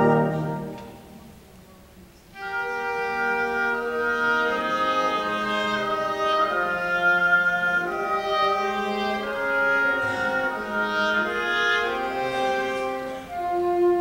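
High school symphonic wind band in concert: a loud full-band chord is released at the start and dies away into a short pause, then the woodwinds come in at about two seconds with a softer passage of held, overlapping notes.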